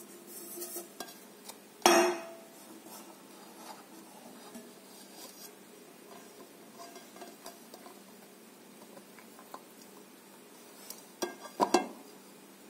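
Metal cake tin clanking as it is lifted off and set aside from a freshly turned-out cake: one sharp, loud clank about two seconds in, then quiet handling, and a few more clattering knocks near the end as the cake is moved.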